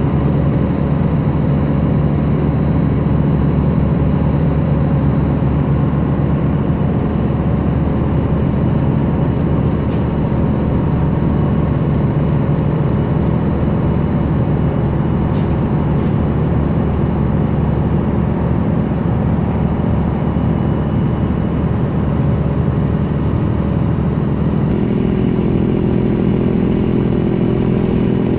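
Car ferry's engine running steadily under way, a constant loud drone. Near the end its note changes and a deeper rumble comes in as the ferry nears the shore.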